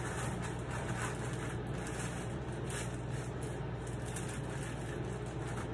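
Steady low background hum with a constant hiss, and faint rustling of a shower cap being pulled on and adjusted over the hair.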